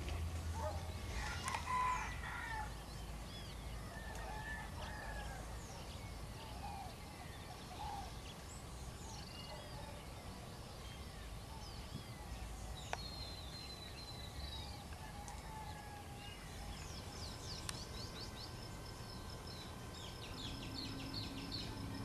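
Several birds calling and chirping, short whistles, glides and trills at different pitches, over a low rumble, with the loudest call about a second and a half in.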